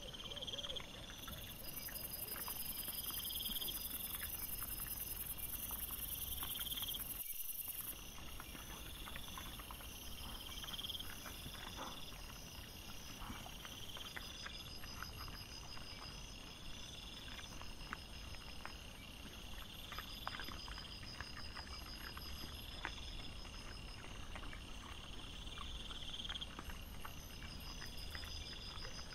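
Night insects chirping in a regular pulsing pattern, with scattered small rustles and clicks from wild boar and piglets rooting and feeding in the leaf litter. The sound drops out briefly about seven seconds in.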